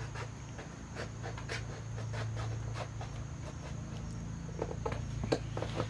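Scattered light clicks and knocks from hands-on pipe-fitting work, with a quick cluster of sharper knocks near the end, over a steady low hum.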